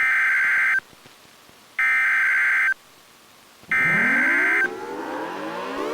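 Emergency Alert System SAME header: three short bursts of warbling high-pitched data tones, evenly spaced about two seconds apart. During the third burst a warning siren starts winding up, its pitch rising.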